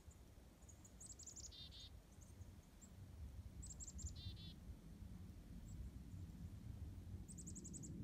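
Black-capped chickadee calling chick-a-dee twice, each a quick run of high notes followed by a few lower dee notes, with another run of high notes near the end. Under it is a faint low rumble of wind that grows louder.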